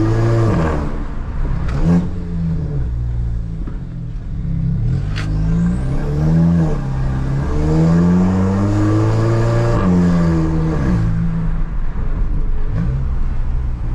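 Stage 2-tuned Volkswagen Jetta 2.0 TSI turbocharged four-cylinder engine pulling hard under acceleration, its pitch climbing and dropping several times as it revs up and shifts.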